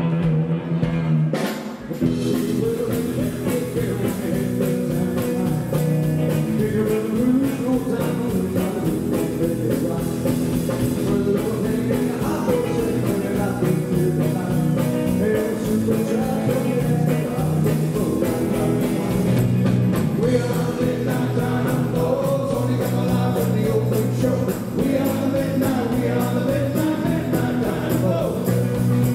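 Live rockabilly band playing: electric guitars and drum kit with a steady beat, and male voices singing, with a brief drop about two seconds in.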